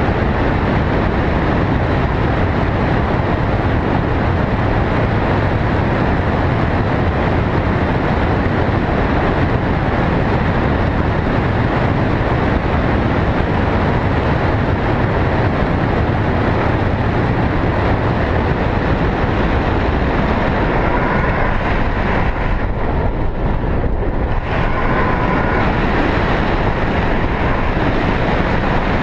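Loud, steady wind rushing over the camera's microphone in tandem paraglider flight, a constant rumbling hiss strongest in the bass.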